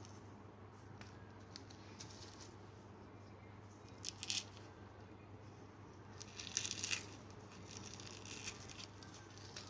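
Compressed cornstarch crumbled and squeezed between the fingers, giving squeaky crunching crackles. There are two louder bursts, about four seconds in and again about six and a half seconds in, with softer crackles between and after them. A steady low hum runs underneath.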